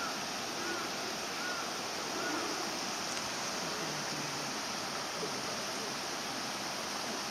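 Steady rushing noise, with four faint high chirps about two-thirds of a second apart in the first few seconds and faint distant voices.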